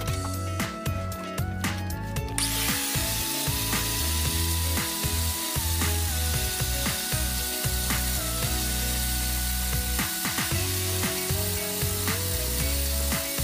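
Angle grinder with a flap disc grinding rust off a steel hatchet head, coming in suddenly about two seconds in and then running steadily, under background music.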